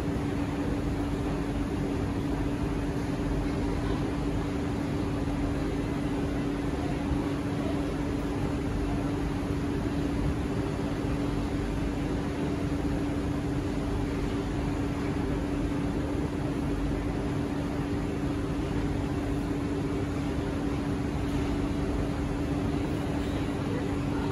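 Kawasaki–CSR Sifang C151A metro train standing at the platform, humming steadily with one constant low tone over an even rush of air-conditioning and equipment noise.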